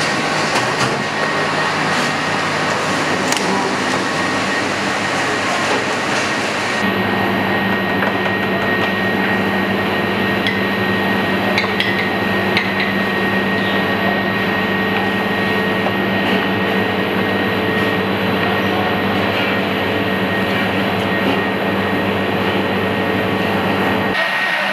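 Steady, loud commercial-kitchen background noise, mostly the rush of ventilation and extractor fans with a constant hum, which changes in tone about a third of the way in. A few light clicks of utensils and containers sound over it.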